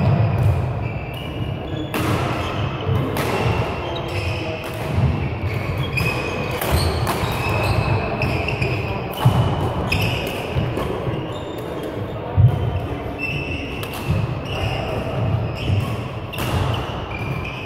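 Badminton doubles rally: rackets hitting the shuttlecock in sharp cracks several times, with shoes squeaking and feet thudding on the court floor, echoing in a large sports hall.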